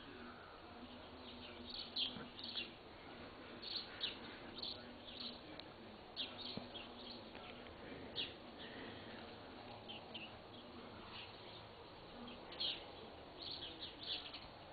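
Faint, short high-pitched chirps of small birds, scattered irregularly, over a low steady hum.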